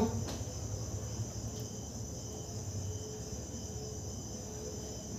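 Quiet background of crickets chirring steadily at a high pitch, over a low hum.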